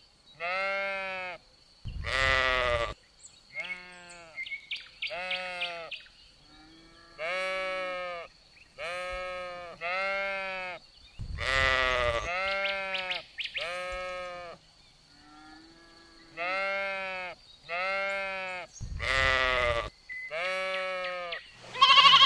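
A farm animal bleating over and over, more than a dozen calls of about a second each, each rising and falling in pitch. A few louder, harsher bleats come about two seconds in, near the middle and near the end.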